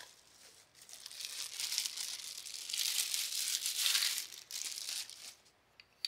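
Packaging crinkling and tearing as a new doorknob is unwrapped by hand, starting about a second in, loudest around the middle, and stopping shortly before the end.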